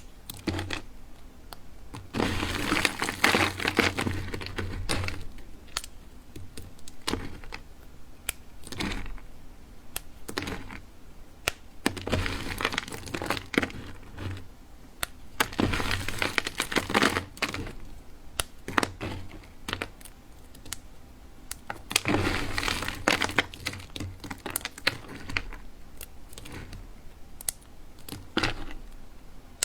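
Soap being cut and crushed with a blade: sharp cracks and clicks, with several longer spells of crumbly crackling.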